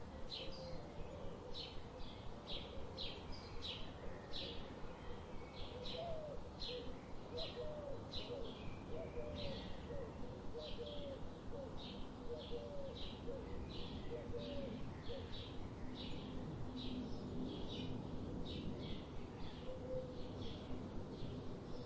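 Birdsong: one bird repeats short high chirps about two to three times a second, while a lower series of short hooked notes comes in about a quarter of the way through and fades out in the middle, over a steady outdoor background hiss.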